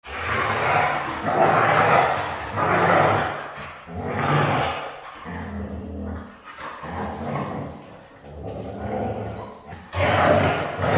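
Siberian husky growling and vocalizing in rough play with a puppy: a string of rough, throaty sounds about once a second.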